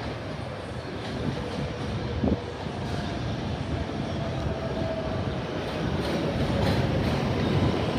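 New York City Subway 7 train approaching on an elevated track, its wheels on the rails growing steadily louder as it nears. A short sharp knock comes about two seconds in, and a faint steady whine runs through the middle.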